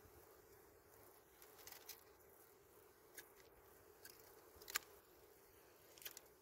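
Faint, scattered clicks and snaps of dry twigs being handled and cut with a small knife, the sharpest about three-quarters of the way through, over a faint steady hum.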